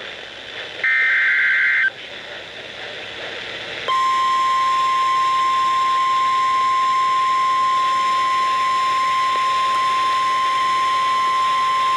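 Emergency Alert System broadcast: the last burst of the SAME digital header, a warbling data screech of about a second, then after a short gap the steady single-pitch 1050 Hz NOAA Weather Radio warning alarm tone, starting about four seconds in and held without a break.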